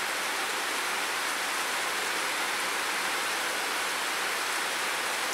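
Steady rain, a constant even hiss that holds the same level throughout.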